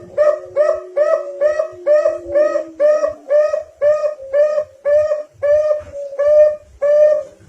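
Zebra dove (perkutut) song: a fast, even series of short cooing notes, about two and a half a second, used as a lure call to set caged perkutut singing.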